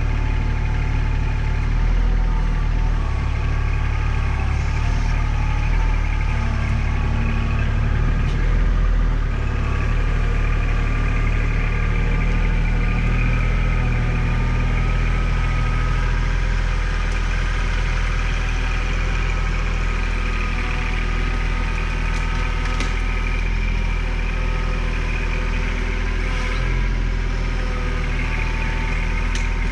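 Tractor's diesel engine running steadily at an even, low speed.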